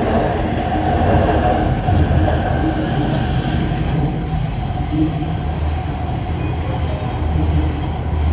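Shenzhen Metro Line 1 train running between stations: a steady rumble of wheels on the rails, with a thin high whine joining about three seconds in.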